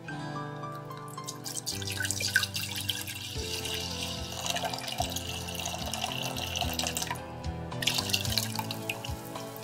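Red wine poured in a stream into an empty stainless steel saucepan, splashing for about five seconds; after a brief pause a smaller pour of lemon juice follows. Gentle background music plays underneath.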